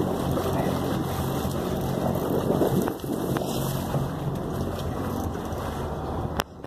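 Wind buffeting the phone's microphone over the steady low hum of the boat's running engine. The sound drops off sharply near the end.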